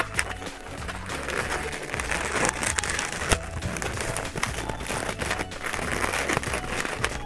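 White latex twisting balloons rubbing and squeaking against each other and the hands as they are twisted and locked into flower petals, with a couple of sharp clicks. Soft background music underneath.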